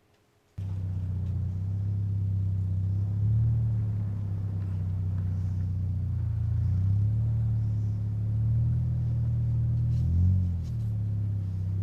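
Car engine running, a steady low drone that starts abruptly about half a second in and rises and falls slightly in pitch.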